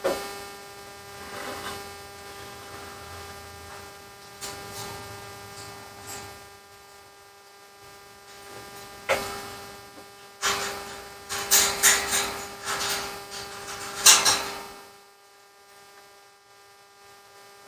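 Steady electrical hum with a second, higher steady tone, under scattered clicks, knocks and scrapes as a plastic-cased ABS control module is handled and turned over on a wooden bench. The handling noises come mostly in the middle stretch.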